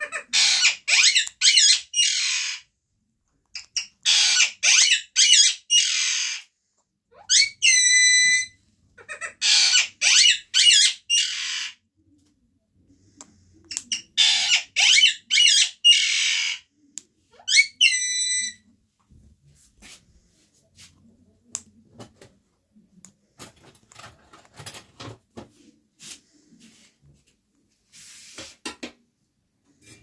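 Parakeet calling: loud, harsh screeches in runs of four or five, and twice a clearer whistled call. After about 19 seconds only faint scattered clicks remain.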